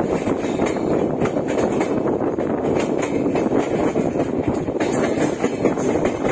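Passenger train coach running on the rails, heard from the open doorway: a steady rumble of wheels on track mixed with rushing air, with a few sharper clicks near the middle and toward the end.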